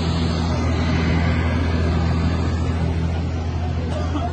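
Steady low engine-like drone under a constant wash of outdoor noise.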